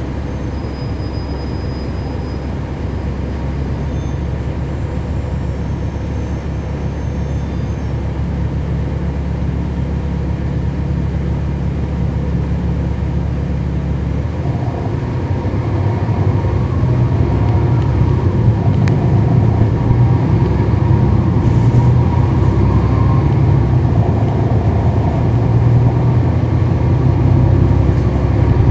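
Cummins ISL9 diesel engine of a NABI 40-SFW transit bus, heard from on board: a steady low hum, then about halfway through the engine note rises and grows louder as the bus pulls away, with faint rising whines above it.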